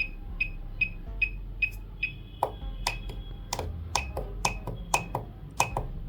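Quiet electronic background music: an even beat of short pinging ticks about two and a half times a second, with sharper snap-like hits joining after a couple of seconds over a low steady hum.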